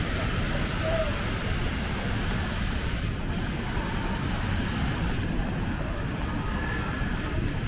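City street ambience in the rain: a steady hiss and low rumble of traffic on wet pavement.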